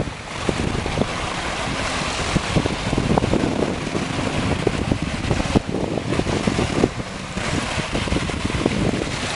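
Wind buffeting the microphone, with small waves lapping and washing on the sand of a calm beach.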